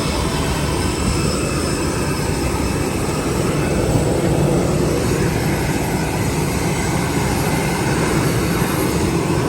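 Steady, loud rumble of a vehicle in motion.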